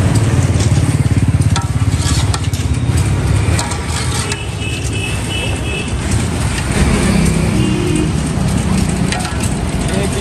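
Street noise with a motor vehicle's engine running close by for the first few seconds, then a few short steady tones over scattered clicks and clatter.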